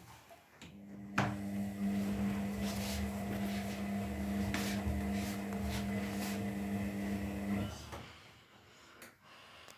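Beko 5 kg washing machine running in a burst of about seven seconds: a steady hum with a click as it starts and a few knocks while it runs, then it cuts off.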